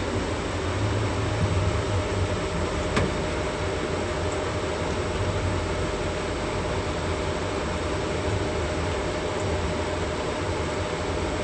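Steady fan and machine hum of a laser cutting machine, with one sharp click about three seconds in.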